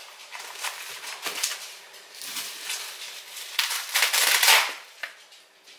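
Irregular rustling and crackling handling noise, a run of short crackles with a longer, louder rustle about four seconds in.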